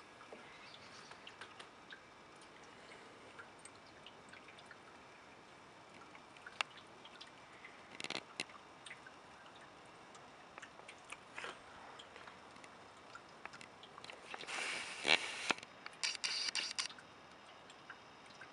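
Faint steady hiss of quiet snowy outdoor air, broken by scattered small clicks and a few short rustling noises. The loudest rustle comes about three-quarters of the way through.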